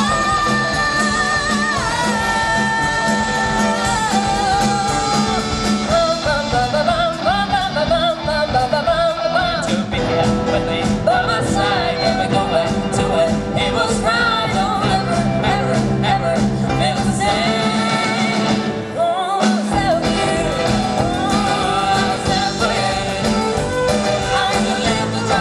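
Live rock band playing loudly: guitar, bass and drums under a bending melodic lead line. The bass and drums drop out for about a second near the middle, then the full band comes back in.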